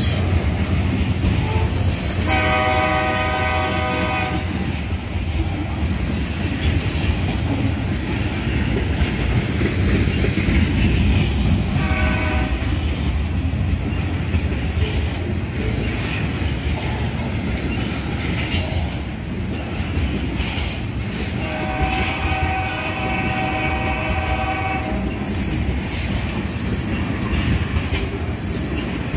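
A grain train's freight cars rolling past at close range: a steady heavy rumble of steel wheels on the rails, with scattered clicks. A train horn sounds three times: a long blast about two seconds in, a short one near the middle, and a longer one later on.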